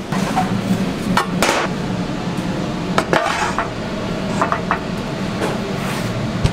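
Metal clanks and scrapes as a metal pizza pan is handled on the deck of a stainless-steel pizza oven and the oven door is shut: a few sharp knocks, several in quick pairs, over a steady low hum.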